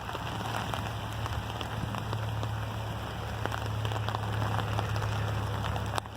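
Heavy summer rain pouring down: an even hiss dotted with many small ticks of drops striking, over a steady low hum.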